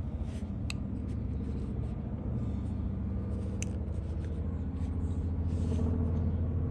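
A steady low motor hum, with a few faint clicks.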